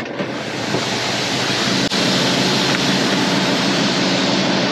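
Shelled corn pouring out of a hopper-bottom grain trailer's open gate through the grate into an elevator dump pit: a loud, steady rushing hiss, with a steady low machinery hum underneath.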